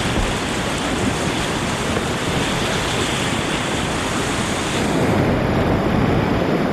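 Steady rushing roar of creek whitewater. About five seconds in it turns more muffled and heavier in the low end.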